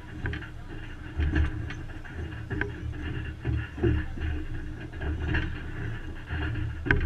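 Boxing bout in the ring: irregular low thumps from the boxers' footwork on the ring floor, with a few sharp slaps of gloved punches, the loudest near the end.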